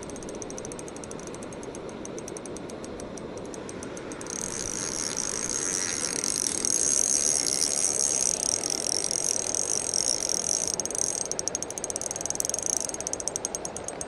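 Spinning reel's drag clicking rapidly as a big fish pulls line, which the angler takes for a trophy pike. From about four seconds in the clicks run together into a louder continuous whir as the fish runs hard, then break back into fast clicks near the end. A river rushes steadily underneath.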